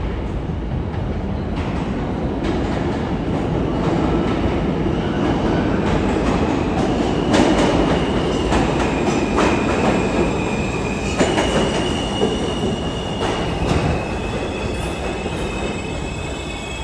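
R160B subway train pulling into the station and slowing to a stop: a rumble of wheels on rail that grows loudest about halfway through, a few sharp clacks over rail joints, and a high steady squeal of wheels and brakes from about a third of the way in.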